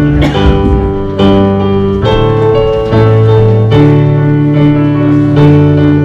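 Piano-sounding keyboard playing held chords that change about every second, the introduction to a worship song before the congregation starts singing.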